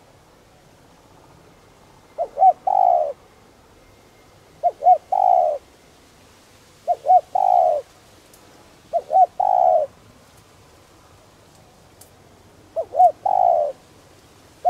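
Spotted dove cooing in the deep 'đồng' voice that Vietnamese dove-keepers prize: a three-note phrase, two short notes then one longer drawn note, repeated about every two seconds, with a longer pause about ten seconds in.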